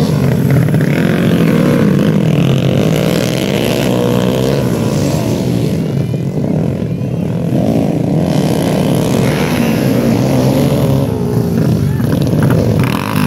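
Motocross motorcycle engines revving as several bikes race past close by, the pitch repeatedly rising and falling with the throttle.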